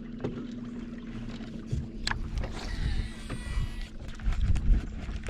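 Boat motor humming steadily at low speed over a rumble of wind and water, with a sharp click about two seconds in and a brief high whir about three seconds in.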